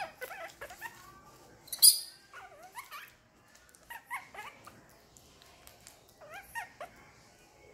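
Baby macaque giving short, high, squeaky cries that rise and fall, in four clusters of a few calls each. A brief sharp crackle about two seconds in is the loudest sound.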